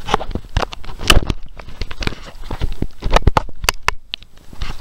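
Irregular splashing and knocking of water against a camera as it is moved through the surface, several sharp hits a second with a short lull near the end.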